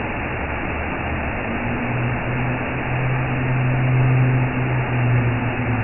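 Steady low engine drone with road noise, as heard from inside a moving vehicle; the drone wavers slightly in pitch.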